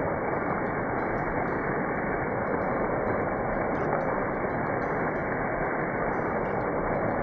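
Steady, dull rushing noise at an even level throughout.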